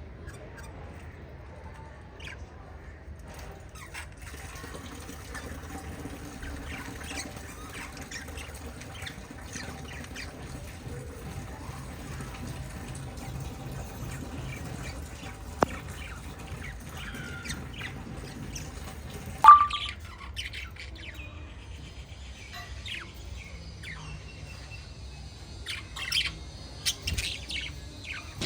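Pet budgerigars chirping and chattering in scattered short calls, with one loud sharp call about two-thirds of the way through and a quick run of chirps near the end, over a steady low hum.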